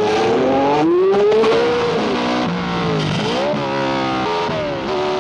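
1960s Formula One racing car engine revving hard, its pitch climbing and then dropping several times as it changes gear.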